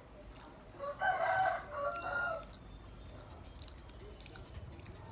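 A rooster crowing once, about a second in, a single call lasting about a second and a half.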